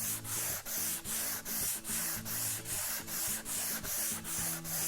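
Sandpaper rubbed back and forth over wood by hand in even, quick strokes, a little over two a second, each stroke a scratchy hiss.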